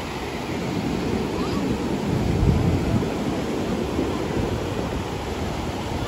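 Ocean surf breaking and washing up a sandy beach, a steady wash that swells a little about halfway through, with wind rumbling on the microphone.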